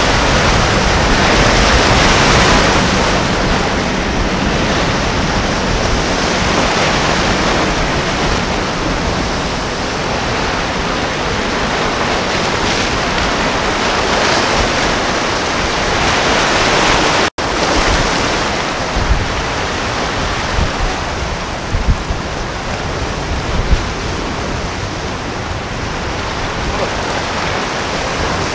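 Waves and surf breaking, with wind rushing over the microphone in a steady, dense wash of water noise. The sound cuts out for an instant a little past halfway. After that, gusts thump the microphone now and then.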